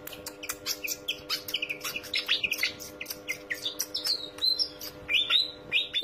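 Pied fantail (sikatan kipas) singing: a quick string of short, sharp high notes, several sliding downward, over a faint steady hum.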